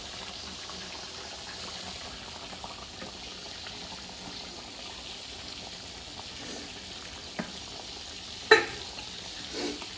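Quail cooking on the stove with a steady hiss of boiling and frying. A single sharp knock comes near the end.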